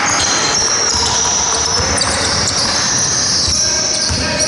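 Basketball game in a sports hall: the ball bouncing on the wooden floor amid players' running footsteps, with high trainer squeaks coming and going.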